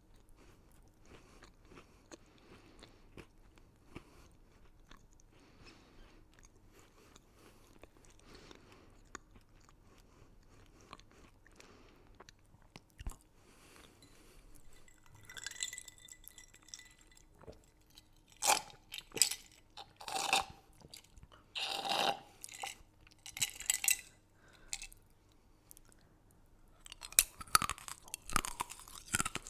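Close-up eating sounds of crunchy candy: quiet chewing for the first half, then a run of loud, sharp crunches from about halfway, bunched into clusters about two-thirds through and near the end.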